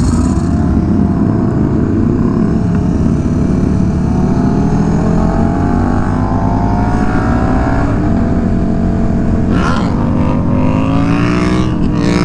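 KTM Super Duke V-twin motorcycle engine under way, its pitch climbing as it pulls, breaking off about eight seconds in and climbing again from about ten seconds, with wind rush over the microphone of the naked bike.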